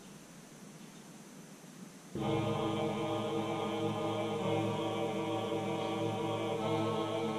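Faint room hiss, then about two seconds in a steady, droning chant-like background music track starts abruptly and carries on.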